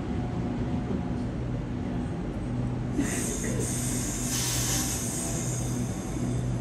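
Sydney electric suburban train at the station, giving a steady low hum with tones that cut in and out. A hiss starts suddenly about three seconds in and dies away after about three seconds.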